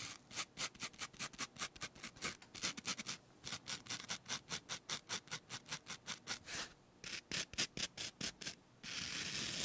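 Quick, short scraping strokes close to the microphone, about four a second, with a few brief pauses, ending in a longer continuous rub. This is ASMR mock shaving of ear hair, stroked in the direction the hair grows.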